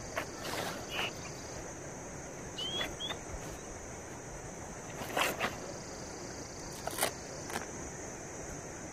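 Nylon dome-tent fabric rustling in short spells as it is handled, loudest about five and seven seconds in, over a steady high insect buzz. A bird gives two short rising chirps about three seconds in.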